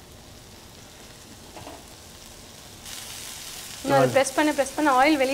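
Marinated fish fillets sizzling in oil on a ridged grill pan, the sizzle getting brighter about three seconds in. About four seconds in, loud wavering squeals start over it.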